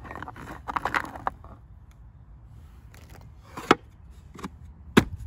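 Paint tubes clattering as hands rummage through the tray of a plywood cantilever box, followed by several sharp wooden knocks as the box's lid is folded shut, the loudest near the end.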